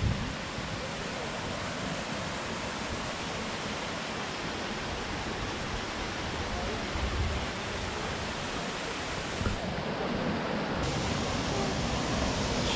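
Steady rush of a rocky mountain stream, water tumbling over stones, with a shift in its sound about ten seconds in.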